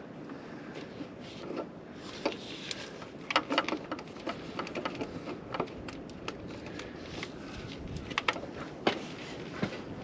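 Scattered small clicks and knocks of a new low pressure fuel pump being pushed into its housing on a tractor's diesel engine and turned into place, several close together a few seconds in and more spaced out later, over a steady background hiss.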